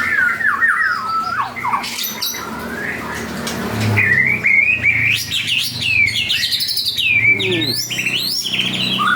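White-rumped shama singing in full song: fast, varied whistled phrases of notes sweeping up and down, in several bursts, with a long rapid run in the middle.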